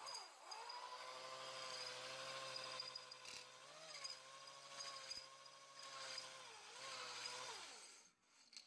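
Faint electric drill spinning a cylinder hone inside a cylinder bore of a Ford 4.6 two-valve V8 block. It runs as a steady whine, sags in pitch briefly a couple of times as the hone drags, and winds down near the end.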